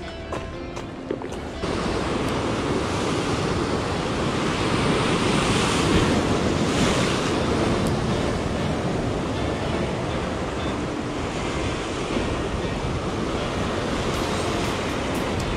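Ocean surf surging and washing over a sea-rock ledge, with wind on the microphone; a surge swells about five to seven seconds in. It opens with a second or so of background music before the surf cuts in.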